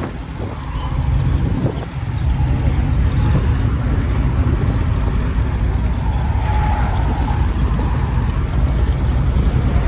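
Low, steady rumble of a car engine running.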